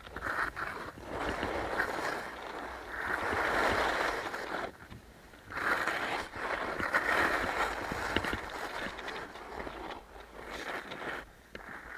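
Skis scraping over firm, chopped-up snow, a rough hiss that swells with each turn and drops away briefly about five seconds in and again near ten seconds.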